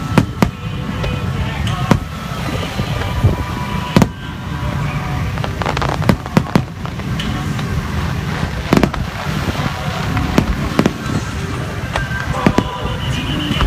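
Aerial firework shells bursting overhead: loud, sharp bangs at irregular intervals, sometimes two or three in quick succession, over a continuous low rumble.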